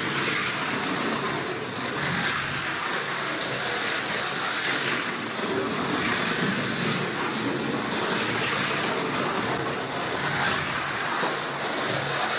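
Carrera Digital 132 slot car, a Porsche 935, lapping the track: a steady whirring hiss of its small electric motor and wheels running in the slot, swelling and fading every few seconds as the car comes round.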